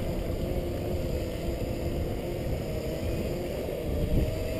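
Segway personal transporter riding along a paved path: a steady motor and gearbox whine over a low rumble.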